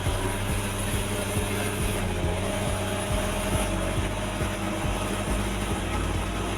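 A vehicle engine running steadily with a low drone, broken by frequent short low knocks.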